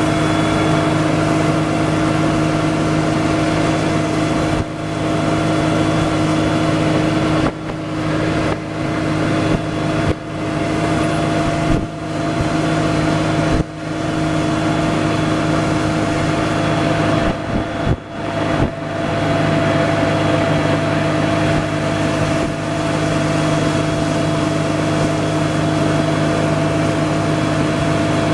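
Small boat's outboard motor running steadily under way, a constant pitched hum with a few brief dips in loudness.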